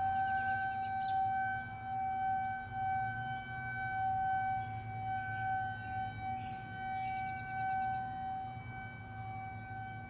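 Federal Signal 2001-130 outdoor warning siren sounding a steady single tone at a fixed pitch, its loudness swelling and fading as the rotating horn sweeps around. The siren is sounding an alert for a severe thunderstorm.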